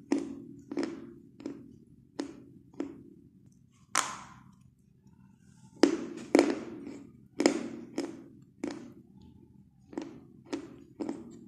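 Orange chalk being chewed with the lips closed: a steady run of dry crunches, about one and a half a second. The crunching stops for a little over a second in the middle, then starts again louder.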